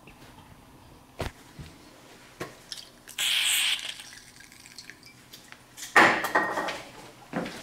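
Aerosol spray can fired through its red extension straw in one short hiss lasting just under a second. About two seconds later comes a loud, sharp knock with a brief metallic ring.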